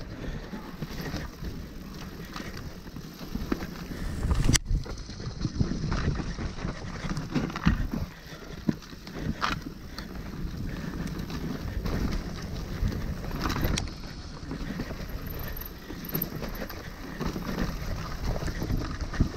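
Hardtail mountain bike ridden along a dirt trail: tyre rumble and wind on the microphone, with sharp clattering knocks over bumps, the loudest about four and a half seconds in.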